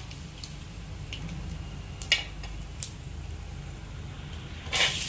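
Tempering seeds spluttering in hot oil in a clay pot, heard as a few scattered sharp pops over a low steady hum. Near the end a loud sizzle starts suddenly as chopped onions and green chillies are tipped into the oil.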